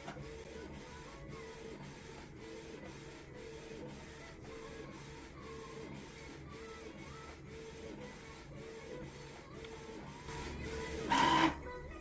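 Printer running a print job: an even mechanical pulse about three times a second with a pulsing hum. A louder rushing whir starts about ten seconds in, then cuts off, leaving it quieter near the end.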